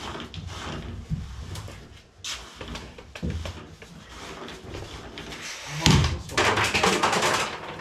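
Knocks, clunks and scraping of boards and tools being handled in an aluminium boat hull, with a louder stretch of clatter about six seconds in.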